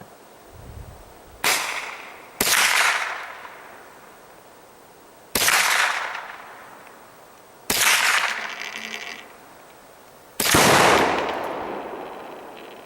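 Gunshots from a .22 rifle and the bangs of firecrackers and salute shells exploding when hit: five sharp reports, each trailing off, the last one the loudest and longest.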